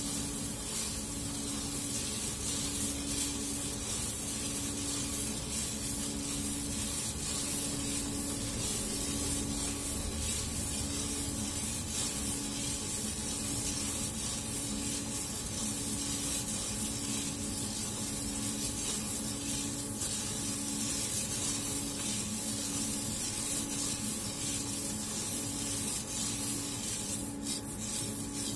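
Roasted robusta coffee beans rustling and rattling as a hand stirs them in a coffee roaster's steel cooling tray. Under it run a steady airflow hiss and a low machine hum that swells and fades at an even rhythm.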